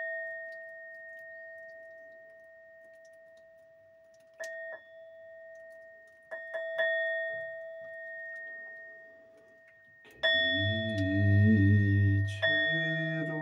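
A struck bell rings with one lower and one higher steady tone and slowly fades, struck again about four seconds in and three times in quick succession a couple of seconds later. About ten seconds in a deep voice starts singing low held notes over the ringing.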